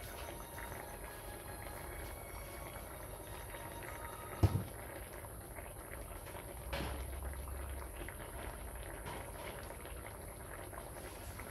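Fish simmering in sauce in a wok over a portable gas stove, bubbling steadily. A single sharp knock comes about four and a half seconds in, and a fainter one a couple of seconds later.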